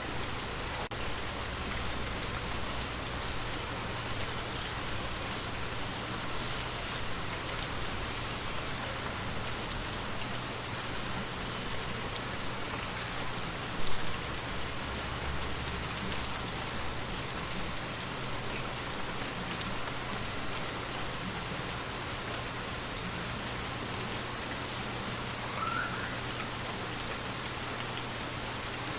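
Steady rain falling, an even hiss of drops hitting a surface, with one short sharp knock about halfway through and a brief faint chirp near the end.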